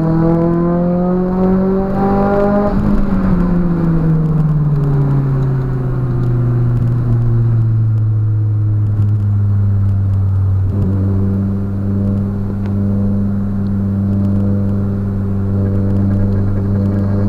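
Nissan 200SX S13's turbocharged CA18DET four-cylinder engine, heard from inside the cabin, through a custom 3-inch exhaust. The revs climb for about three seconds, fall away over the next few, then hold steady.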